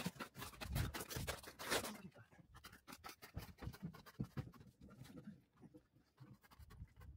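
Scraping, rustling and light clicks of objects being handled, busiest in the first two seconds, then scattered clicks.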